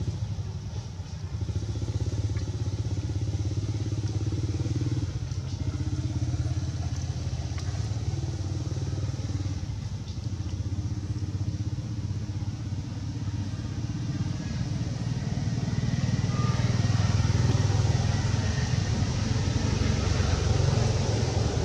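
Engine running with a steady low rumble, growing louder in the last few seconds.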